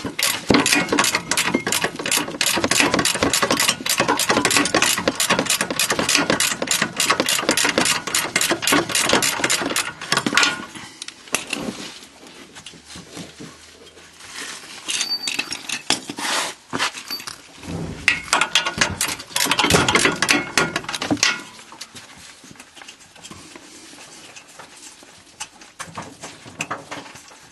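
A ratchet wrench clicking rapidly and steadily for about ten seconds as the bolts of the rear wheel hub assembly are undone, then a few shorter bursts of ratcheting with pauses between.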